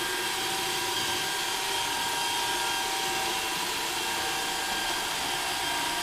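iRobot Roomba Dirt Dog robot sweeper running on a bare wooden floor: its motors and counter-rotating brushes give a steady whir with a faint, steady whine on top.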